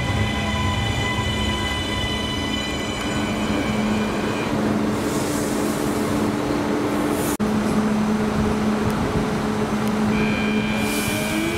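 CP suburban electric multiple unit moving through the station: wheel and track noise under a steady electric traction whine. The sound drops out for an instant about seven seconds in, and near the end a whine rises in pitch as a train picks up speed.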